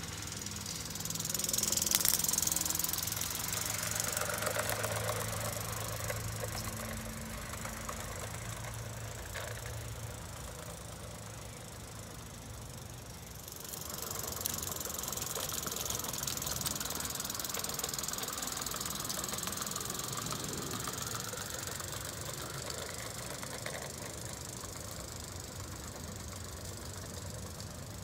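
Miniature model trains running on a garden railway: wheels rattling and clicking over the track, with a high hiss. The sound swells about two seconds in, fades, and picks up again about halfway through.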